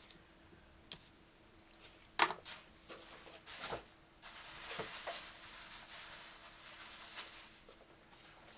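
A few scattered knocks and clicks of a kitchen knife against a plastic cutting board as the last cuts on a chicken thigh are made and the knife is set down, the loudest about two seconds in; then a soft hiss for about three seconds.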